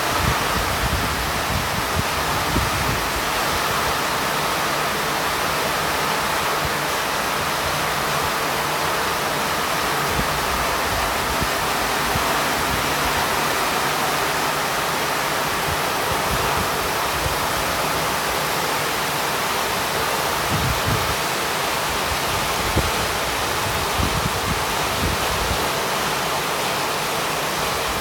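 Heavy tropical downpour: rain pouring steadily onto coconut palms, roofs and waterlogged ground, an even hiss with no let-up. Gusts of wind now and then buffet the microphone with a low rumble, near the start and again about twenty seconds in.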